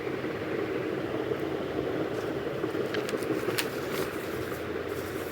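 Steady low background hum with a few faint clicks about three seconds in.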